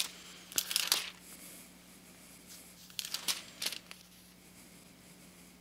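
Bible pages rustling as they are leafed through to find a verse, in two short bursts, about half a second in and again around three seconds in, over a faint steady hum.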